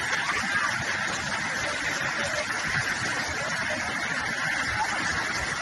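Steady rush of heavy floodwater pouring down stone steps in torrential rain: a constant, even hiss-like noise that doesn't let up.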